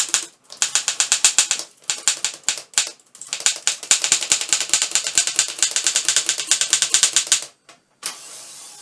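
Office Underwood typewriter being typed on: rapid typebar strikes in a few short runs, then a long unbroken run at roughly eight strikes a second. Near the end the strikes stop and a short, even rasp follows.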